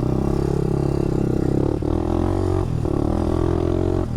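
Engine of a rebuilt Honda off-road machine running hard under way on the trail, dipping briefly twice in the middle before pulling again.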